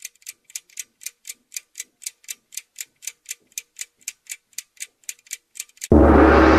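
Clock ticking quickly and evenly, about four ticks a second. Near the end the ticking stops and a loud, dense, sustained tone comes in suddenly.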